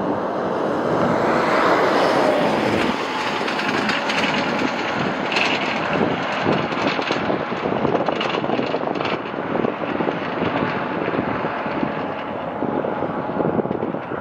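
Jet airliner's engines running as it comes in to land, a steady roar that is loudest about two seconds in and then holds.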